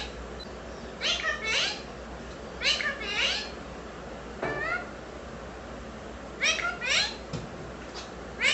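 Indian ringneck parakeet chattering in short, high-pitched, warbling calls, mostly in pairs about half a second apart, with pauses of a second or more between the groups.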